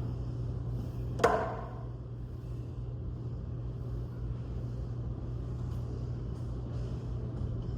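A single sharp clank of gym weights with a short metallic ring about a second in, over a steady low hum of gym background noise.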